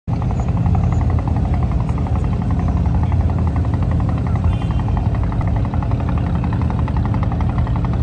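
Diesel engine of an abra water taxi running steadily at cruising speed, a loud, even, fast chugging with a deep hum beneath it.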